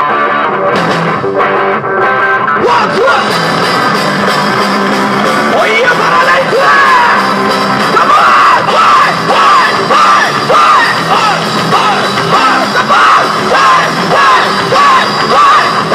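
Live rock band with electric guitars and drums: guitar alone at first, then the drums and full band come in a couple of seconds in, and a male voice sings loudly over them from about six seconds in.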